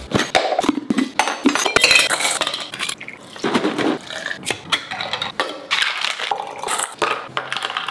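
Stainless steel cocktail shaker and its metal pieces clinking and clattering as they are handled, with a pour of liquid into the shaker about three and a half seconds in.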